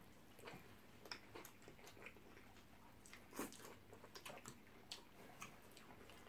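Faint chewing and mouth sounds of people eating shawarma wraps, with scattered soft clicks, one a little louder about three and a half seconds in.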